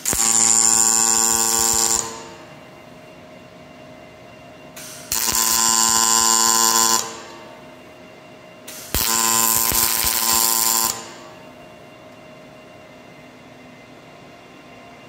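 Robot-held MIG welding torch laying three short welds of about two seconds each: a loud buzzing arc hiss that starts and cuts off abruptly each time, with a faint steady hum between the welds.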